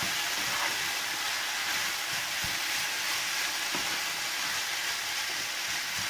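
Grated carrots and courgette sizzling steadily as they sauté in oil in a frying pan, stirred with a wooden spoon.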